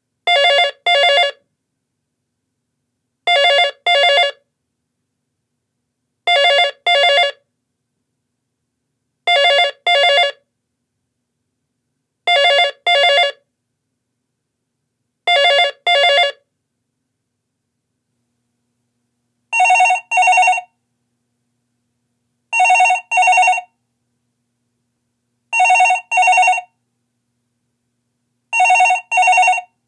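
Two Telecom Australia home telephones ringing in turn, each with the double-ring cadence of two short rings about every three seconds. First a Telecom 8071 S1/511 Touchfone rings six times; then, about two-thirds of the way in, a Telecom S/I 550/200 Touchfone takes over with a different-sounding ring, four double rings.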